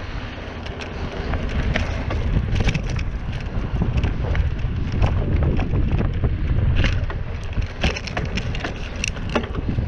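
Mountain bike ride on a dirt trail: wind rumbling on the microphone, with frequent sharp clicks and crackles from the tyres and bike rolling over the trail surface.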